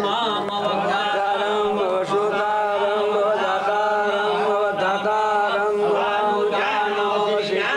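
Chanting of a Hindu Sanskrit mantra, sung on a steady held pitch with slow, even changes.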